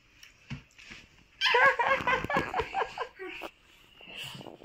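Toddler giggling: a run of high-pitched laughs starting over a second in and lasting about two seconds.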